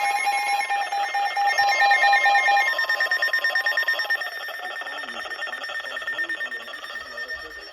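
Emergency alert tones announcing a flash flood warning: pulsing electronic beeps that stop a little under three seconds in. Quieter tones carry on and fade out.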